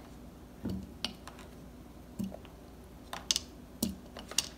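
Chunks of watermelon dropped by hand, one at a time, into a clear plastic Magic Bullet blender cup: a few soft thuds and light clicks about a second apart.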